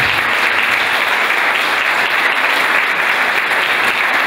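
Audience applauding, a steady dense clapping that holds at the same level throughout.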